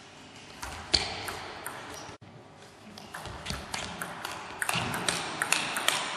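Celluloid table tennis ball clicking off rubber-faced bats and the table: a sharp click about a second in, then a quick rally from about four and a half seconds in, with several hits and bounces a second.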